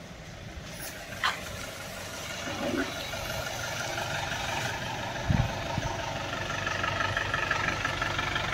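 Engine of an SML school bus running as the bus drives up and stops, growing louder as it nears and settling to an idle. A sharp click comes about a second in and a low thump about five seconds in.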